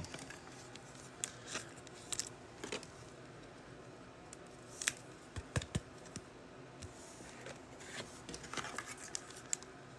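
Trading cards being handled while a pack is gone through: faint, scattered clicks and light scrapes of cards sliding against one another.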